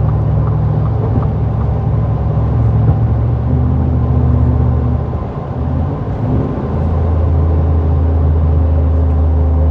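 Ford F-150's 5.0 V8 through a Borla cat-back exhaust, a deep, steady exhaust note heard from inside the cab while driving. The note breaks briefly about five and a half seconds in, then settles back to steady.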